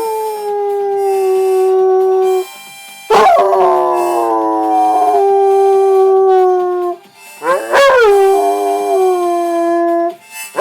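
Dog howling. One howl ends about two seconds in, then two more long howls follow. Each starts with a sharp rise in pitch, then settles into a held, slowly falling note lasting about three to four seconds.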